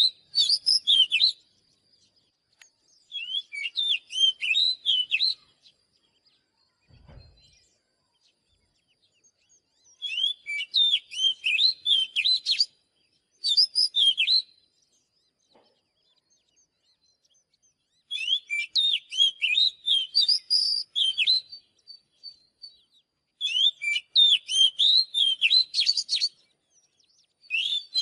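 Oriental magpie-robin singing: bouts of rapid, varied whistled notes and slurred glides a few seconds long, broken by pauses of a few seconds.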